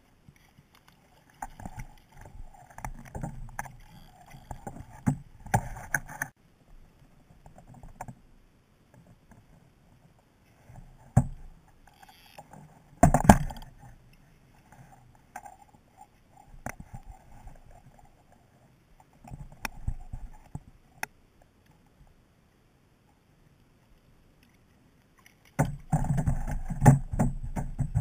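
Intermittent splashing and knocks at a plastic fishing kayak while a hooked fish is brought alongside and landed, with quiet gaps between; one sharp knock about halfway through is the loudest.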